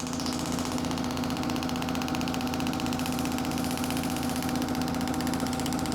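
Shockwave therapy device firing a rapid, even train of pulses as its applicator works over the neck, a steady fast machine-like tapping buzz.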